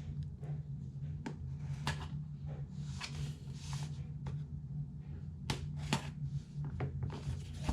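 Hands opening a smartphone's retail box: scattered light clicks, taps and short rustling scrapes of cardboard and packaging, over a steady low hum.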